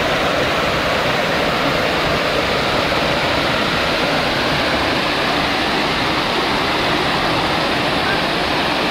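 Steady loud rush of Peterhof's Pyramid Fountain: water from the tall tiered jet falling into its basin and pouring down the marble cascade steps in front of it.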